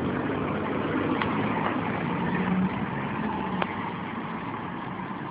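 2012 Ford Focus hatchback pulling away and driving off, with steady engine and road noise and a low engine hum that stands out for about a second midway.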